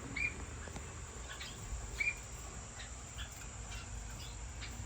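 Caged finches giving scattered short, high chirps and calls, two of them a little clearer about a third of a second and two seconds in.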